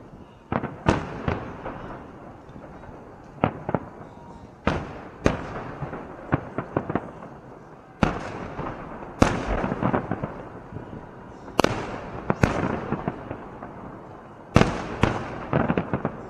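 Festive fireworks salute: a dozen or more sharp bangs, some in quick pairs or clusters, each trailing off in crackle and echo over a constant low rumble.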